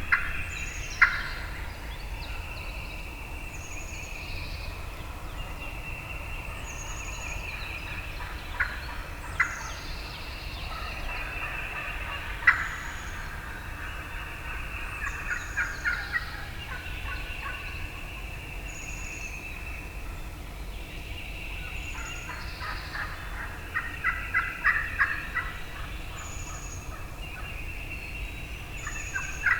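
Wild turkey gobblers gobbling again and again, some gobbles overlapping, with the thickest run of gobbles near the end. A short, high call repeats every second or two behind them.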